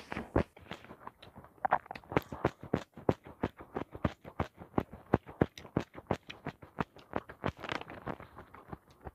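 Close-miked chewing of food with the mouth open: a quick, regular run of short mouth clicks, about five a second.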